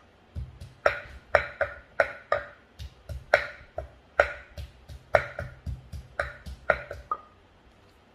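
Wooden pestle pounding papaya salad in a clay mortar: a steady run of knocks, about two to three a second, each with a short ring. The pounding stops near the end.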